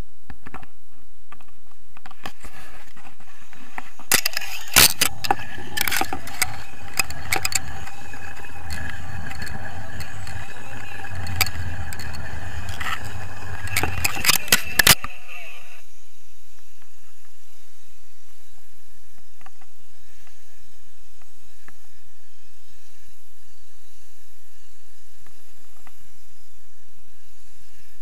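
A cord rubbing against the camera close to the microphone: scraping with sharp clicks and rattles for about ten seconds from about four seconds in, then only a faint steady background.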